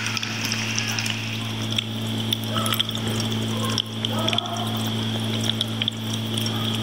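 Electric cat drinking fountain running: its small pump hums steadily while thin streams of water trickle and splash into the basin, with small irregular clicks and splashes.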